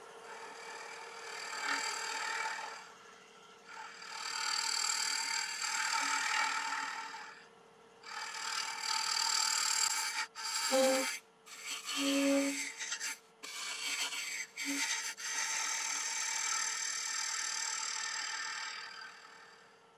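Carbide-tipped hollowing tool scraping and cutting the inside of a damson bowl spinning on a wood lathe, in several passes of a few seconds each with short breaks, over the steady hum of the lathe.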